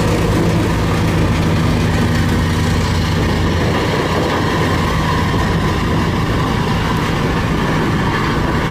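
Compactor's heavy diesel engine running steadily with a low, even hum. It cuts off suddenly at the end.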